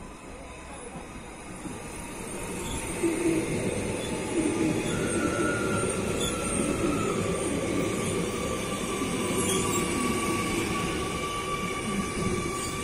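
Train running along the station tracks, its rumble building over the first few seconds and then holding steady. A thin high tone, wheel squeal or motor whine, sounds over the rumble.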